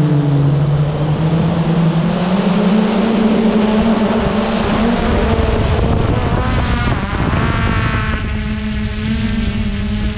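Quadcopter drone's motors and propellers buzzing, a steady low hum whose pitch slides up and down as the drone manoeuvres, with several wavering higher tones about halfway through.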